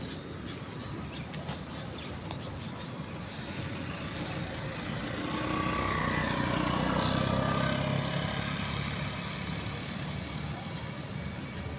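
A motor vehicle driving past on the road, over steady traffic noise: its sound swells up about halfway through and fades away again, the pitch falling as it passes.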